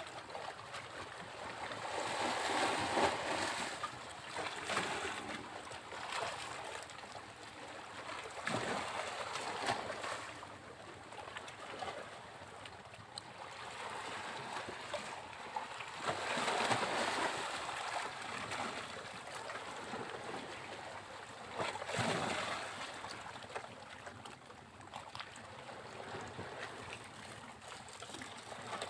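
Sea waves breaking on a beach: surf washing in slow surges every several seconds, loudest about three seconds in and again a little past the middle, with a softer wash between.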